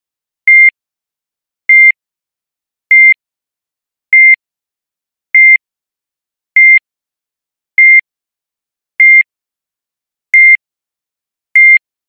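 Heart monitor beeping at a steady medium rate: short, high, single-pitched beeps about every 1.2 seconds, ten in all. Each beep marks a heartbeat, a pulse of about fifty a minute.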